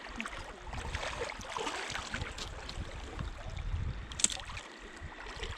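Shallow water sloshing and trickling, with a low rumble of movement through it and one sharp click about four seconds in.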